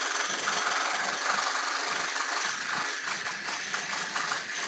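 Steady hum and hiss of background noise coming through a participant's unmuted microphone on a video call, its lowest part flickering in and out as the call's noise gating cuts it.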